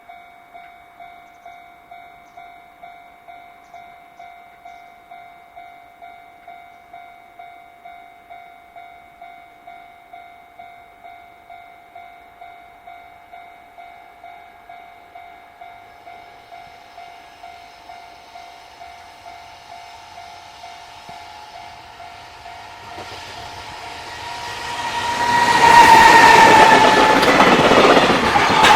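Japanese level-crossing warning bell ringing, about two electronic dings a second. A JR Freight train then approaches and passes close, loud from about 25 seconds in, with a brief tone near the loudest point.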